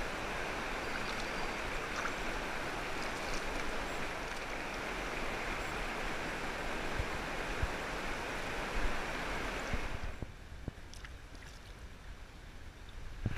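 Creek water rushing close to the microphone with a steady hiss, dropping to a quieter murmur about ten seconds in.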